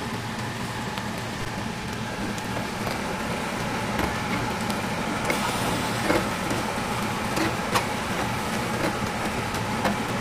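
Pieces of spicy rib meat sizzling on a wire-mesh grill over charcoal, over a steady low rumble, with a few sharp clicks of metal tongs and spatula against the grill mesh as the meat is turned. The sizzle grows hissier about halfway through.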